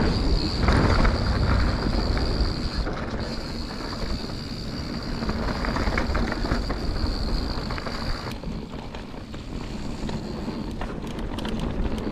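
Mountain bike rolling fast down a dirt trail, with wind rushing over the action camera's microphone and the tyres and bike rumbling over the ground. There are a few sharp knocks and rattles near the end.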